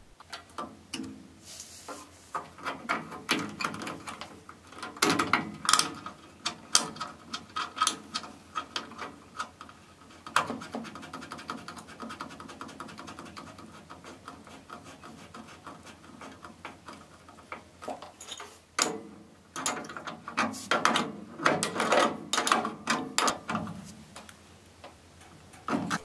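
Metal pilot and manifold tube fittings handled with a small wrench and threaded into a water heater's gas control valve: irregular light clicks, taps and scraping, busiest in two stretches.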